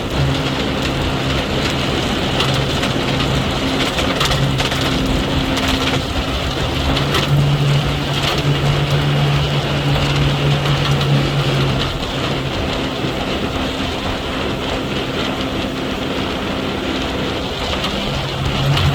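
Motorboat engine running under way, with heavy rushing wind and water noise. The engine note grows stronger about seven seconds in, eases off around twelve seconds, and picks up again near the end.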